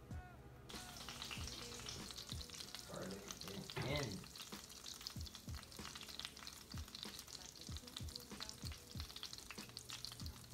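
Butter and oil sizzling and crackling in a hot frying pan, starting about a second in, with a louder spell of sizzle around four seconds in as chopped garlic goes into the hot fat.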